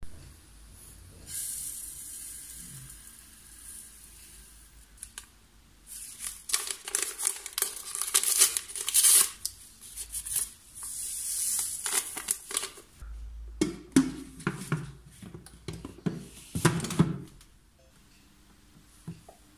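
A paper sachet of vanilla sugar being torn open and crinkled, with dry ingredients poured with a hiss into the steel bowl of a food processor. A few louder knocks and bumps come near the end.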